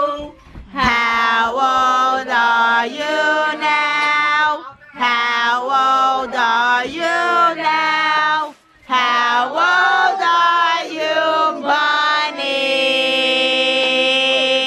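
Singing in phrases with short breaks between them, giving way about twelve seconds in to steady held musical notes.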